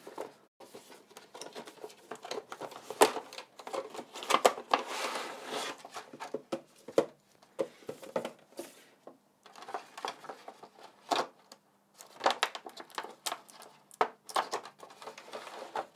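Cardboard box and clear plastic packaging tray being handled: irregular crinkling and rustling of the plastic, with scattered clicks and taps, busiest around the middle.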